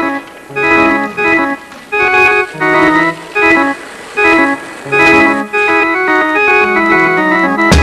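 Soundtrack music: an organ playing short, choppy chords in a repeating rhythm, with a sharp hit near the end.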